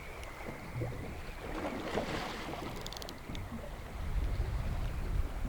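Wind buffeting the microphone over water lapping and slapping against a small boat's hull, with a few light clicks about three seconds in. The low rumble of the wind gusts grows stronger near the end.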